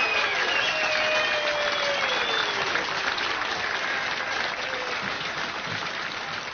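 Applause from a crowd, fading slowly, with a few gliding high tones in the first couple of seconds.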